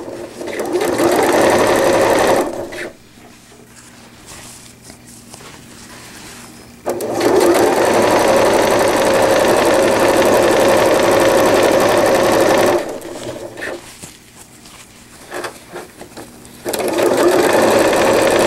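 Electric sewing machine stitching a seam through PUL fabric in three runs: it stops about three seconds in, runs again from about seven to thirteen seconds in, and starts up once more near the end, with a few small clicks in the pauses.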